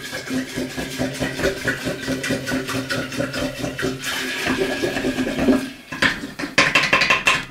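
A wooden spoon stirring liquid with juniper berries and raisins in an earthenware jug: a continuous quick knocking of spoon against the pot's wall, with the liquid sloshing.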